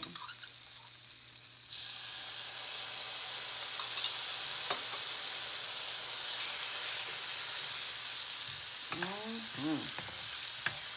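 Butter frying in a hot pan with a tablespoon of minced garlic just added. About two seconds in, the sizzle jumps suddenly to a loud, steady hiss as the garlic hits the hot butter, and a wooden spatula stirs it through.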